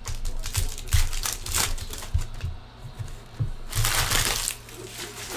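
Crinkling and crackling of trading-card packs being handled and opened, with a louder rip of wrapper about four seconds in.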